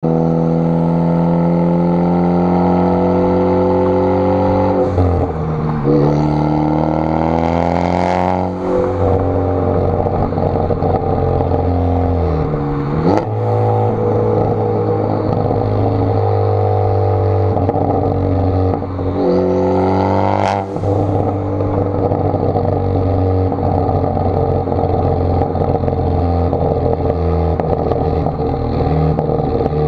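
2014 Ford Focus ST's turbocharged four-cylinder engine running through a catless downpipe and Borla cat-back exhaust, its revs climbing and then dropping sharply several times. Exhaust crackles and pops come through as the revs fall.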